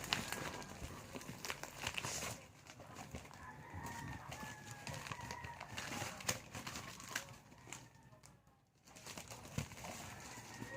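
A rooster crowing, with wavering calls in the middle and again near the end. Scattered clicks and rustles of handling, denser in the first two seconds.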